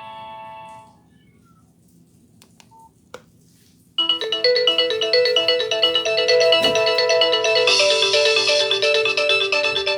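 Nokia 6085 polyphonic ringtones. The previous tune fades out in the first second, followed by a short pause with a few faint clicks. About four seconds in, a new ringtone starts abruptly with a quick, busy multi-note melody.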